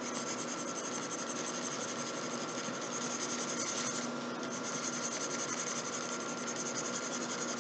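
Steady hiss with a faint, even electrical hum, overlaid with light scratchy rubbing.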